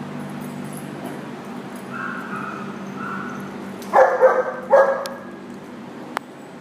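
Large dog barking in a short burst of loud barks about four seconds in, over a steady low hum.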